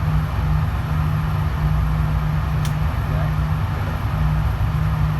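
Steady low droning hum of an indoor shooting range's ventilation, with a faint click about two and a half seconds in.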